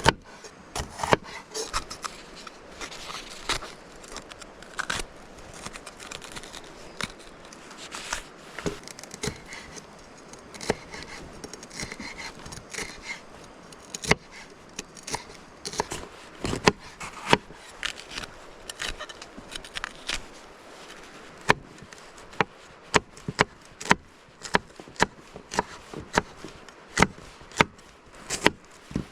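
Knife chopping food on a cutting board: scattered cuts at first, then a steadier run of sharp knocks about two a second through the second half.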